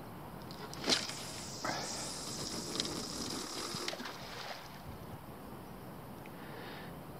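Fishing rod and reel being worked just after a cast: a sharp knock about a second in, then about two seconds of line and reel noise with a faint high whine that stops abruptly.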